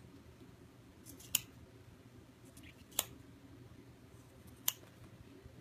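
Gingher applique scissors snipping through vinyl appliqué fabric, trimming close to the stitching: three crisp snips about a second and a half apart.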